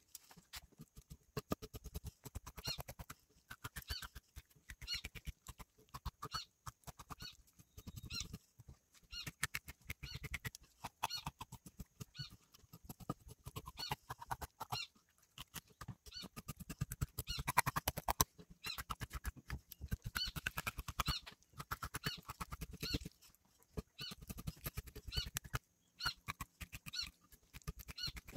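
Knife scoring a scaled traíra crosswise on a wooden cutting board: a long, irregular run of short crunching cuts through the skin and fine bones, the blade clicking against the board.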